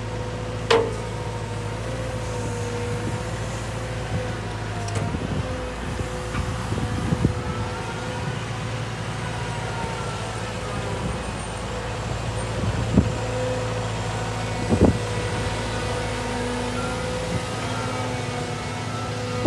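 Caterpillar M315D wheeled excavator's diesel engine running steadily as the machine drives off, with a steady whine over the low hum. There are a few short sharp knocks, one near the start and two more about two-thirds of the way through.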